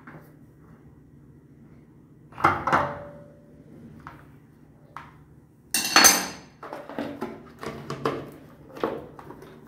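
Knocks and clicks of hands working fittings and the plastic cover on top of an electric water heater tank: a knock with a short metallic ring a couple of seconds in, a loud sharp clack about six seconds in, then a run of lighter clicks and knocks.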